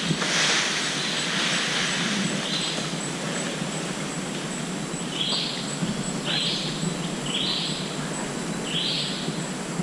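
Tropical rainforest ambience: a steady hiss with a faint high constant tone, a brief rustle near the start, and short high calls repeating about once a second from about halfway through.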